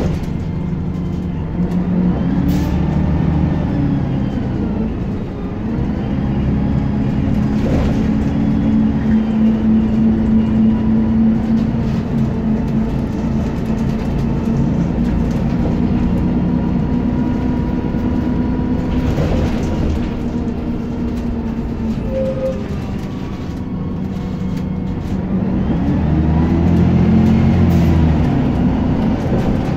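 Scania bus's diesel engine and driveline heard from inside the passenger saloon while driving. The engine note rises and falls with changing speed and climbs loudest near the end, over a thin whine and a few knocks from the body.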